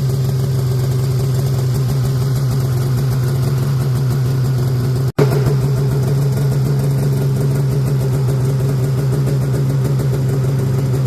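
Polaris snowmobile engine idling steadily, cutting out for an instant about five seconds in.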